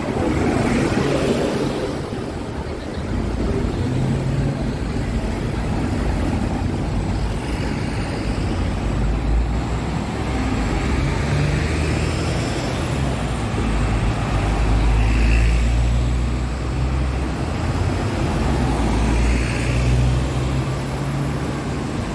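Steady low rumble of a moving vehicle, swelling to its loudest a little past the middle.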